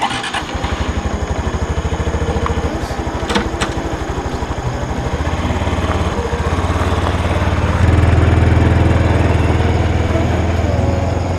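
Small single-cylinder Honda Super Cub 110 motorcycle engine running, starting abruptly and getting louder about eight seconds in.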